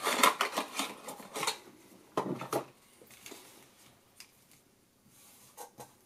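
Small cardboard box being opened by hand and a plug-in power adapter with its cable pulled out: dense rustling and scraping with clicks for the first second and a half, a louder rustle about two seconds in, then lighter handling clicks.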